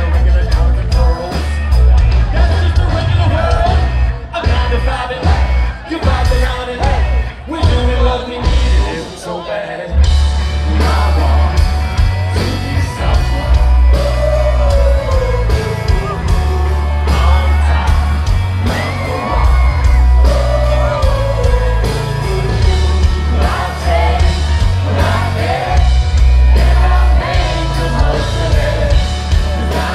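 Live rock band with a lead singer on microphone over electric guitar, bass and drums, with a heavy bass low end. The first stretch is sparse and choppy; about a third of the way in the full band comes in and plays on densely under the singing.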